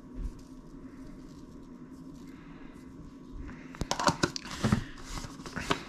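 Plastic containers and lids handled on a countertop: after a quiet stretch, a run of sharp clicks and knocks in the second half, over a low steady hum.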